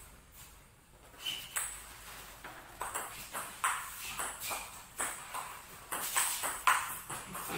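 Table tennis rally: the celluloid ball is struck back and forth with paddles and bounces on the table, making a run of short sharp clicks that starts about a second in.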